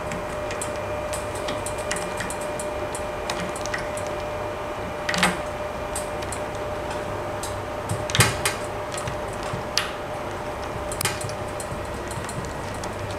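Small plastic clicks and rubbing as a rubber O-ring and a plastic cable-gland cap are fitted and screwed onto a port of an outdoor wireless bridge, with a few louder knocks about 5 and 8 seconds in. A steady faint hum runs underneath.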